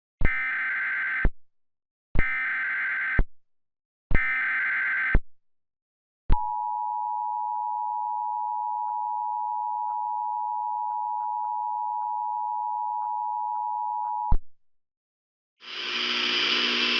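Emergency Alert System SAME header: three bursts of about a second each of buzzing data tones, followed by the two-tone EAS attention signal, held steady for about eight seconds before it cuts off. The sequence marks the start of an emergency alert, and a broad hiss comes in near the end.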